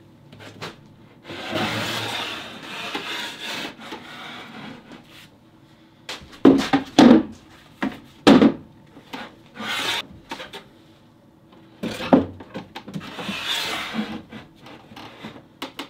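A cloth rubbing over rough pallet-wood boards in long wiping strokes, with several loud wooden knocks and thuds in the middle as the cabinet and its doors are handled.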